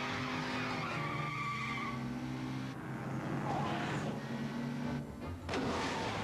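Cartoon car sound effect: a patrol car driving off with squealing tyres and a running engine, over held background tones.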